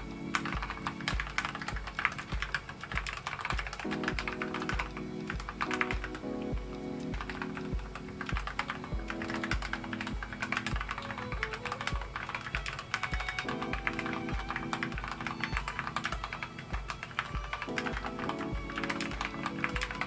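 Rapid, continuous typing on a Keychron K8 tenkeyless mechanical keyboard: a quick, steady patter of key clicks. Background music with a steady beat, about two beats a second, plays underneath.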